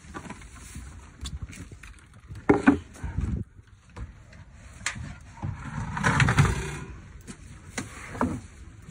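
Knocks and shuffling on a wooden deck, with a few short vocal sounds, one falling in pitch near the end.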